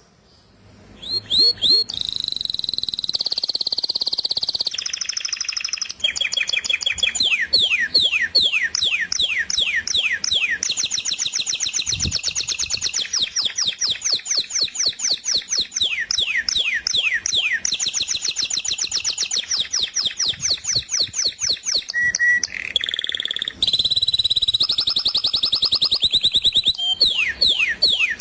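Small songbirds singing continuously: fast series of repeated high down-slurred notes, several a second, overlapping into a dense chorus.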